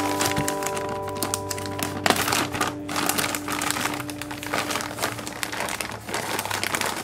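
Clear plastic zipper bag full of play sand crinkling and rustling as it is squeezed and pulled open, over background music whose held notes fade out about halfway through.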